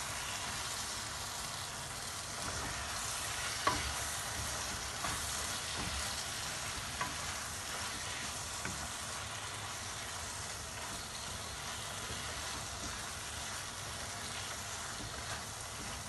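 Okra and tomato-spice sauce sizzling in a frying pan as a wooden spatula stirs and scrapes through it, with a few light knocks of the spatula on the pan, the sharpest about four seconds in.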